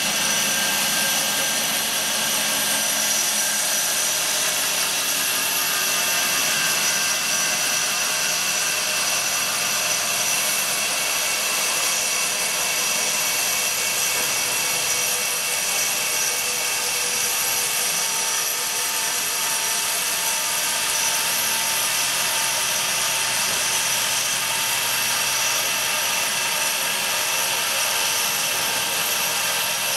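CNC hot-wire foam cutter running while its wire slowly cuts through a polystyrene block. The sound is a steady, unchanging machine whine: several held high tones over a constant hiss.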